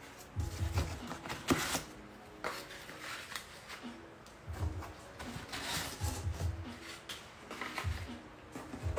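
Cardboard packaging being handled and pulled out of an outer box: scattered rustles, scrapes and clicks with several soft thumps.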